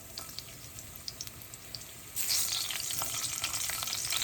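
Chopped garlic frying in hot oil in a pan. Light crackling at first, then a sudden, much louder sizzle about two seconds in that carries on.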